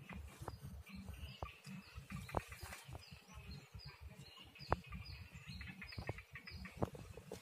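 Faint outdoor ambience: a low, uneven rumble, scattered sharp clicks, and a faint high chirp repeating about three times a second through the middle.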